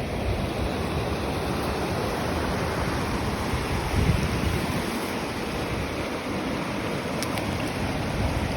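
Steady rush of river water over rapids, with wind gusting on the microphone about four seconds in.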